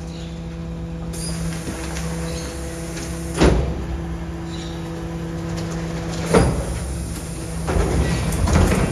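Electric rear-loader garbage truck's hydraulic bin lifter humming steadily as it tips wheelie bins into the hopper. Two loud bangs come about three and a half and six seconds in, then rattling and clatter near the end.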